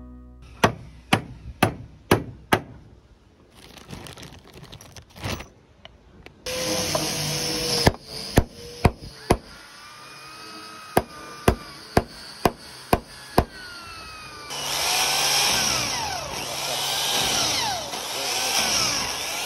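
Hammer blows on wood during boat carpentry, in runs of sharp knocks about two a second. Twice a power tool runs in between: briefly in the middle, and again for the last five seconds with its pitch sweeping up and down.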